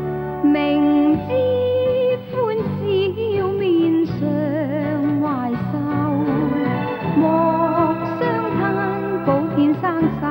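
Theme song: a singer's melody, held with vibrato on long notes, over steady instrumental backing.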